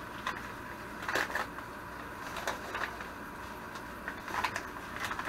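Packaging rustling and crinkling in the hands as a small keychain item is unwrapped and a padded paper envelope is handled, in short scattered bursts over a steady faint hum.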